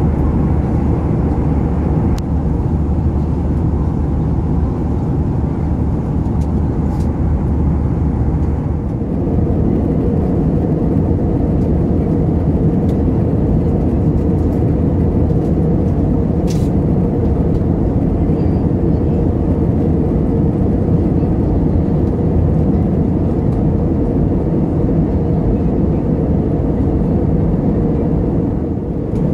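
Steady in-flight cabin noise of an Airbus A320: a loud, even rumble of engines and airflow heard from a passenger window seat. A low hum within it stops about nine seconds in, leaving the rumble slightly fuller.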